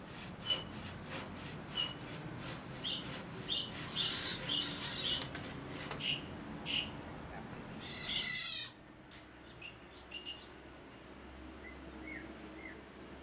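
Bow saw cutting through a wooden log in a steady rhythm of strokes, with birds chirping. About two-thirds of the way in the sawing stops, and only short, falling bird chirps remain.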